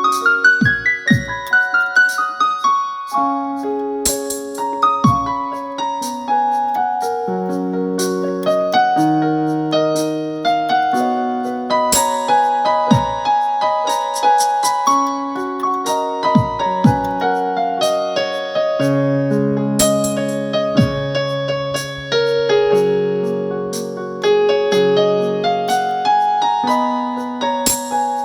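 Electronic keyboard playing a melody over sustained chords in an electric piano voice, opening with a quick descending run, with a few short low thuds along the way.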